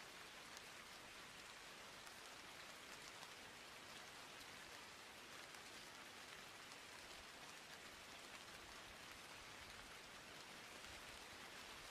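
Faint steady hiss with a fine crackle, even throughout.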